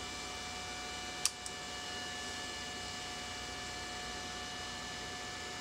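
A push button on a home-built wire-heating power controller clicks once about a second in, with a fainter click just after, switching current to the pyrography wire. Under it runs a steady electrical hum with a faint high whine.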